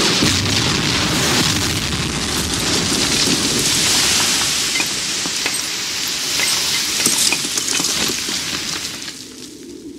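A tank cannon blast and shell explosion goes off suddenly, then a long hissing rush of rubble and debris rains down with scattered sharp ticks, fading near the end.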